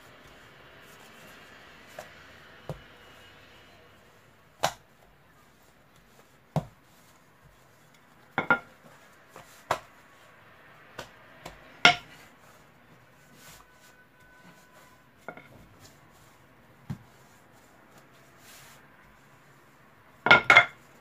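Wooden rolling pin knocking and clattering on a granite countertop as laminated dough is folded and rolled out, with a soft rustle of dough and flour at first, then scattered sharp knocks, a few ringing briefly, and a quick cluster of them near the end.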